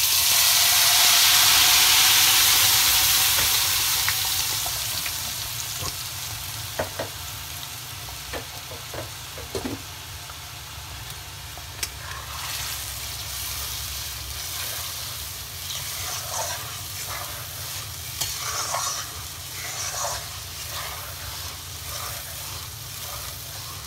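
A blended paste poured into hot butter and oil in a wok hits with a loud sizzle that fades over the first few seconds. The frying then goes on more quietly while a metal spatula stirs the paste and scrapes the pan, with repeated short scrapes in the second half.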